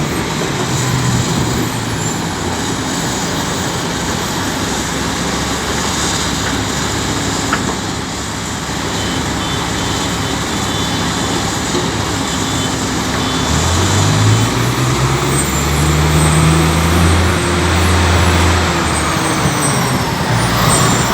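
Heavy diesel engines of a large excavator and an off-highway haul truck running steadily. About thirteen seconds in, an engine revs up and holds the higher speed for several seconds before settling.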